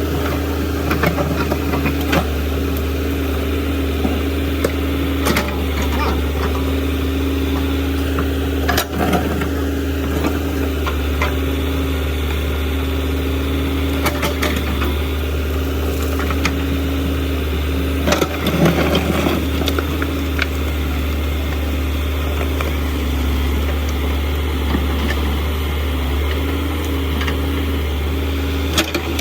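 JCB machine's diesel engine running steadily under work, with a constant low hum, and short knocks and clatter breaking in every few seconds.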